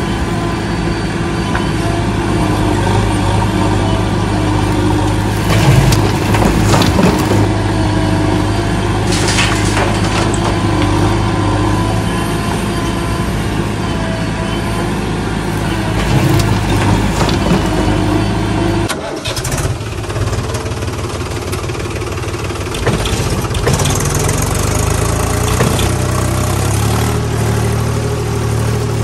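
Vehicle engine sound running steadily with a low hum, the engine noise that goes with a toy backhoe loader working a gravel pile. A few short clatters come in the first third, and about two-thirds through the engine sound switches to a different, lower one.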